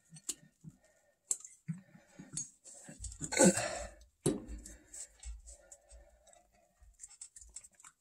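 Scattered knocks, clicks and rustles of a furnace blower motor and its parts being handled, with a louder, briefly pitched scrape about three and a half seconds in and a sharp click just after.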